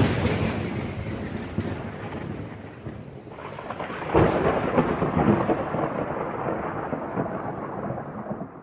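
Thunderstorm: thunder rumbling and fading over steady rain, with a second roll of thunder building about four seconds in.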